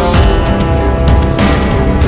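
Loud music with held chord tones, heavy bass and sharp drum hits.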